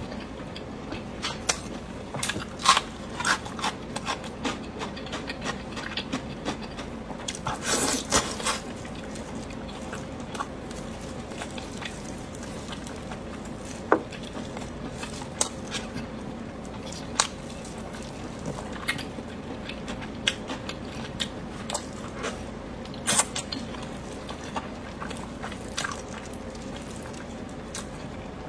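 Close-up eating sounds: biting and wet chewing, with scattered sharp clicks and taps throughout and a denser run of them about eight seconds in.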